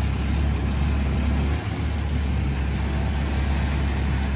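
Heavy truck's engine running with a steady low drone.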